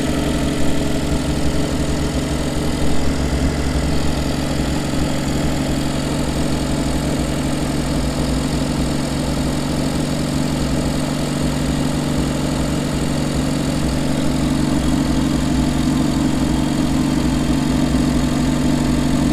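Carbureted engine of a 1949 White WB-20 tow truck idling steadily, running evenly with its carburetor jet opened up after long storage.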